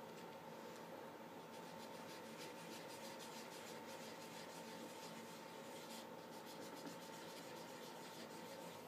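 Faint scratching and tapping of a marker tip on construction paper as spots are drawn, over a steady faint electrical hum.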